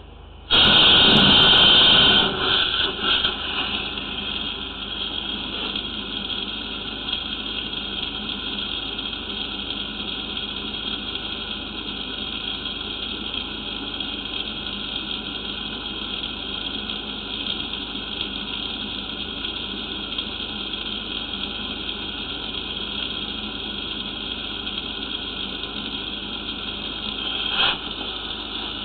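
Water rushing into and along a sewer pipe, flushed in to clear the drain camera's lens. It starts suddenly about half a second in, is loudest for the first two seconds, then settles to a steady rush, with a brief surge near the end.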